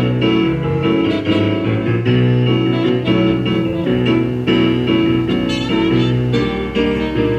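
Keyboard music played live, sustained chords changing every second or so.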